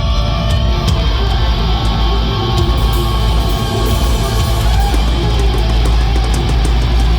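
Live heavy rock band playing loud: distorted electric guitars, bass and a drum kit, with cymbal and snare hits coming more often in the second half.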